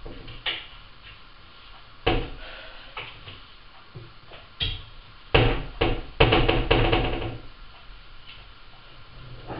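Metal pots and lids clattering against each other as they are handled in a low kitchen drawer: a few single knocks, then a quick run of ringing clanks just past the middle.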